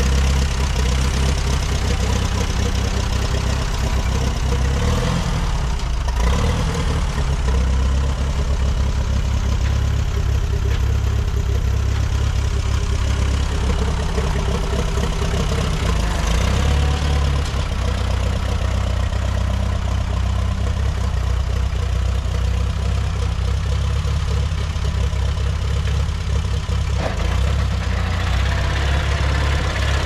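1952 Case VAC tractor's four-cylinder gasoline engine running steadily at low revs while the tractor is driven.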